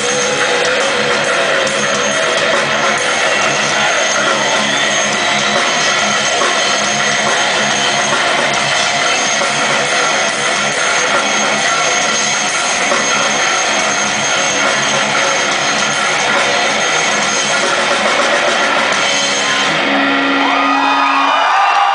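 Heavy metal band playing live and loud: electric guitars, bass and drum kit. About twenty seconds in the song ends on a held note, and the crowd starts cheering and whooping.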